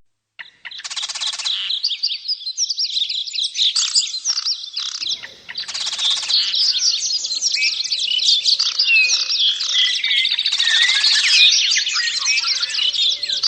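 A chorus of many small birds chirping and twittering continuously in quick overlapping high notes, with a few harsh buzzy calls in between.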